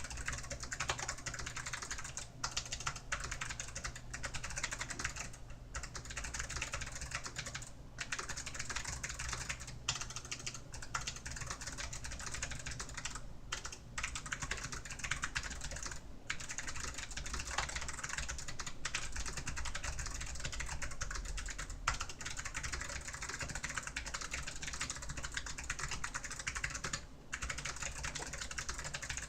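Continuous fast typing on a DAREU EK820 low-profile mechanical keyboard with Kailh low-profile clicky switches: a dense run of key clicks, broken by a few short pauses.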